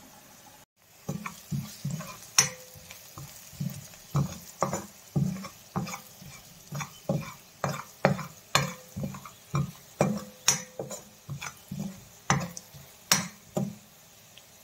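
Steel ladle scraping and knocking against a stainless steel pan while onions and spices are stirred in hot oil. It knocks about twice a second, starting about a second in, and some strokes leave a short metallic ring.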